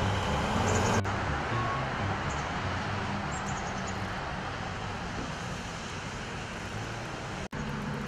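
Steady traffic noise from a wet road, an even hiss, with a brief dropout near the end.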